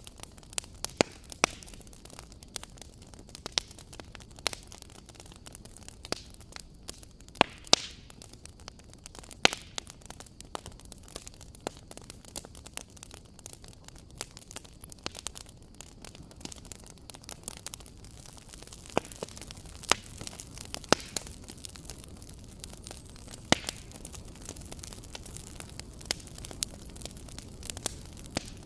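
A fire in a fireplace crackling: irregular sharp pops and snaps over a steady hiss.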